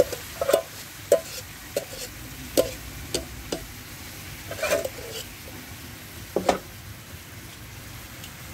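A pan of chicken adobo sizzling and bubbling as the soy-vinegar sauce cooks down. A steady hiss carries sharp pops and clicks scattered through it, more of them near the start.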